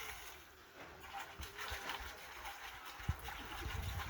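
Water sloshing and swirling inside a clay pot as it is rinsed out, with a few low knocks near the end.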